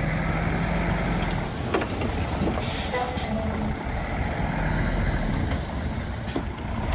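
Heavy diesel machinery running with a steady low rumble, with three short hisses.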